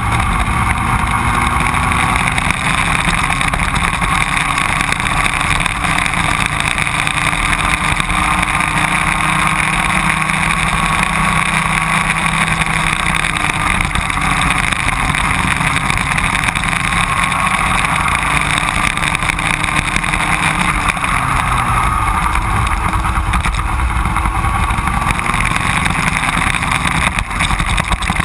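Racing go-kart engines running hard, their pitch slowly rising and falling with the throttle, heard from a camera mounted on a kart.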